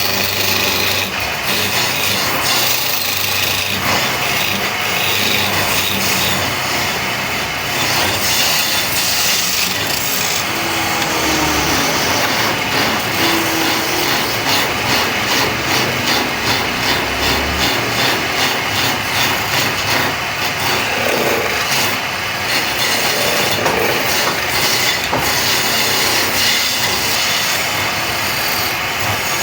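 Wood lathe running, with a hand tool working the spinning wood of a turned leg: a steady, dense rasping.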